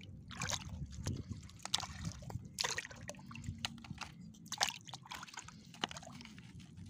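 Shallow water sloshing and splashing in irregular strokes, about one every half second to second, as someone wades through it.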